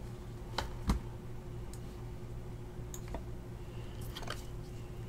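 Hands handling a trading-card printing plate: two light knocks about half a second and a second in, then a few faint clicks and a soft rustle, over a steady low hum.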